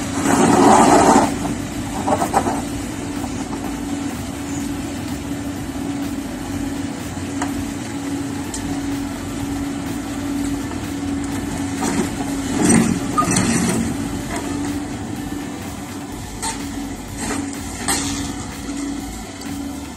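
Long-reach tracked excavator's diesel engine running with a steady hum, with louder bursts of noise about a second in and again about two-thirds of the way through.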